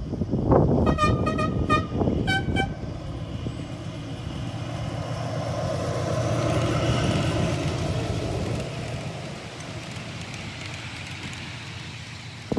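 Miniature-railway locomotive horn giving a quick run of short toots, then two more. Then the train passes close by: wheels running on the rails swell in a rumble and fade away.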